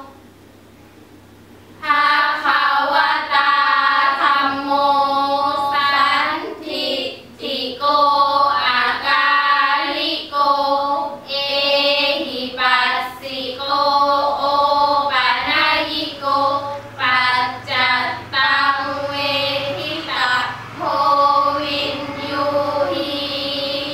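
A group of girls chanting sarabhanya, the melodic Thai Buddhist verse chant, together in long held, gliding notes phrase by phrase. The chanting starts about two seconds in, after a short pause between verses.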